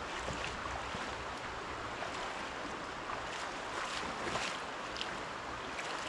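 Steady rush of river water flowing over rocks, with a few faint light ticks.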